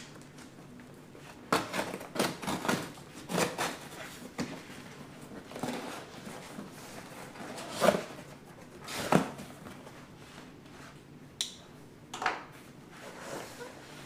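Small pocket knife slitting packing tape on a cardboard box, then the cardboard flaps being pulled open and plastic wrapping handled: an irregular run of short scrapes and rips.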